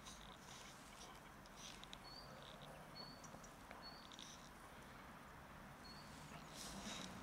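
Faint crunching of dry kibble as a cat eats from a plastic tub, with short high chirps recurring about once a second.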